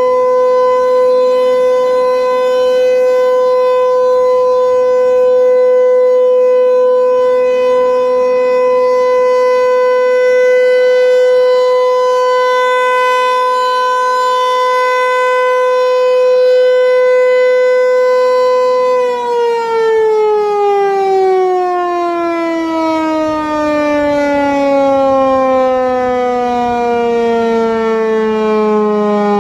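Federal Signal 508 rotating electromechanical tornado siren sounding its steady alert tone, held at one pitch. About 19 seconds in the steady signal ends and the siren winds down, its pitch falling slowly.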